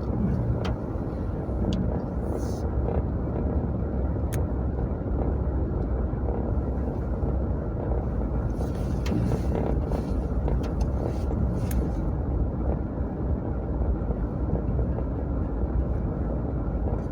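Car driving, heard from inside the cabin: a steady rumble of engine and tyres on the road, with a few scattered sharp ticks.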